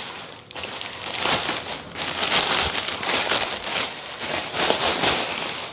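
Clear plastic wrapping crinkling and rustling irregularly as a plastic-wrapped wooden plant stand is handled and the wrap is pulled at.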